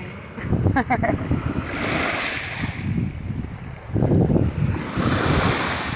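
Small surf waves washing up and draining back over a shell-covered beach, with wind buffeting the microphone in gusts.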